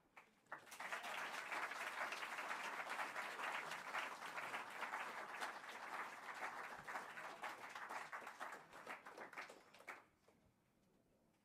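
Audience applauding, building quickly to a steady patter of many hands, then thinning to scattered claps and stopping about ten seconds in.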